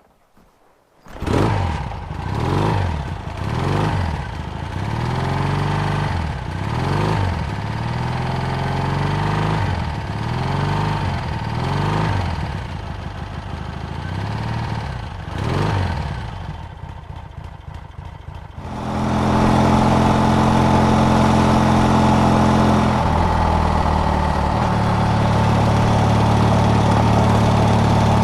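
Harris T140's parallel-twin motorcycle engine catching about a second in, then blipped repeatedly, each rev rising and falling roughly every two seconds. It settles lower, then from about two-thirds of the way through runs steadily and louder, with a shift in pitch near the end.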